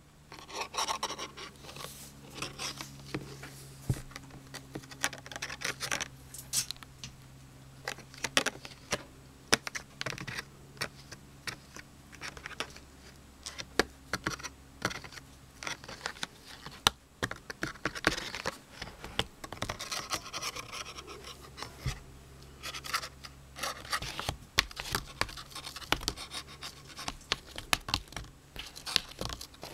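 Irregular scratching, scraping and clicking of a plastic quilting ruler being waggled while a cat bats and claws at it, over a faint steady low hum.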